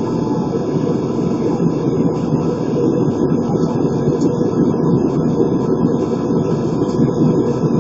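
Steady drone of engines and rushing air heard inside the cabin of an Airbus A320 in flight: an even, low-pitched noise with no change.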